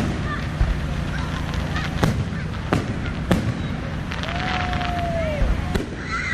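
Fireworks going off: four sharp bangs spread over a few seconds over a steady low rumble, with crackling in between. A single held tone about a second long sounds in the middle, falling slightly as it ends.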